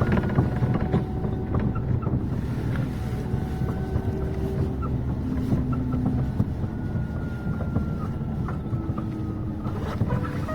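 Inside a moving city bus between stops: a steady low rumble of drive and road noise, with light rattles and faint high whines that come and go.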